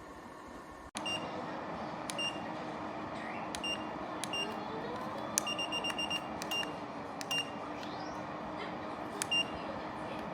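Ceramic fan heater's control panel giving short, high beeps as its buttons are pressed: about a dozen beeps, with a quick run of about six near the middle, over the steady whir of the heater's fan. The sound starts abruptly about a second in.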